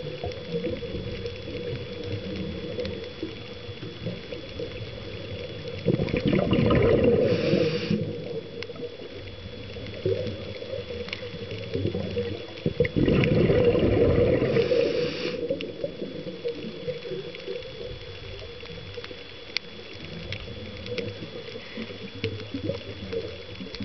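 Underwater recording: a scuba diver's regulator exhaling twice, each time a burst of bubbling that lasts about two seconds, the two about seven seconds apart. Under it runs a constant faint crackle and a steady high whine.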